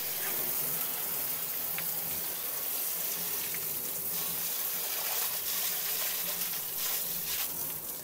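Garden hose spraying a steady jet of water into a vehicle cab, splashing onto the seat and the wooden floor slats, with water running off; a continuous hiss.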